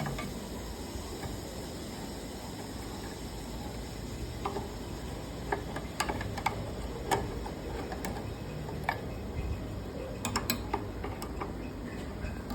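Steady low hum of boiler-room machinery, with scattered light clicks and ticks from about four seconds in.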